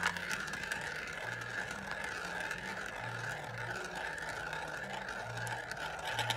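Marbles rolling round and round inside the clear plastic spiral funnel of a toy marble run, a steady whirring rumble.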